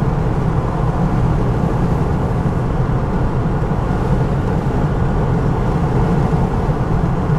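Car driving along a road, heard from inside the cabin: steady engine and road noise, strongest in the low end, with no breaks or changes.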